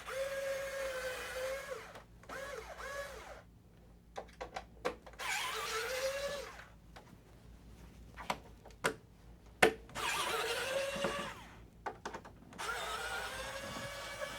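Electric screwdriver with a T8 bit backing out the PS5's screws in about five short runs, its motor whining up to speed and winding down each time. Sharp clicks and taps come between the runs.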